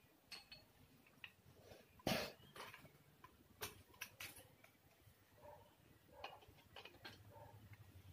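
Scattered small clicks and knocks of screws and a white metal table frame being handled during assembly, the loudest knock about two seconds in.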